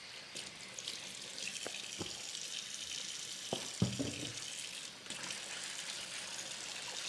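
Water running steadily from a tap into a sink, with a few light knocks about two, three and a half and four seconds in.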